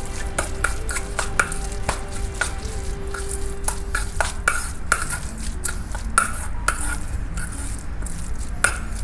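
Metal spoon stirring diced raw salmon in a stainless steel bowl, clinking and scraping against the bowl's sides at an irregular pace.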